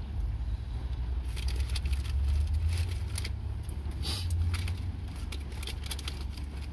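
Paper food wrapper crinkling and rustling in quick irregular crackles as it is handled, over a steady low rumble from the car.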